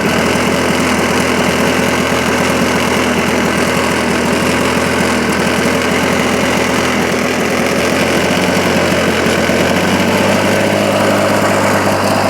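1980 Lawn-Boy model 8237 mower's two-stroke engine running steadily just after being pull-started, its note shifting slightly about ten seconds in.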